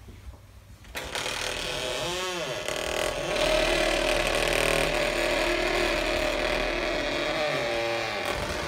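A small engine starts about a second in and runs loudly and steadily, its pitch swinging up and down briefly twice.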